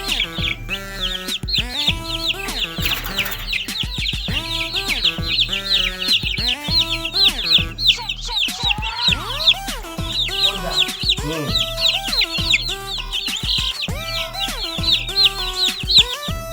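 A flock of broiler chickens peeping and clucking continuously in many overlapping high chirps, over background music.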